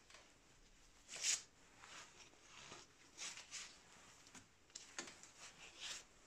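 Faint rustling and brushing as a gloved hand handles a bicycle's handlebar and runs along its cable housing, a few short scrapes spaced a second or two apart, the loudest about a second in.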